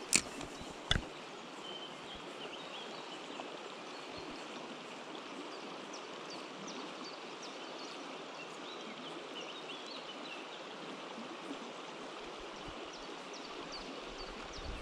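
Steady rush of river water flowing over a shallow, rocky stretch, with two sharp clicks about a second apart near the start and faint high chirps throughout.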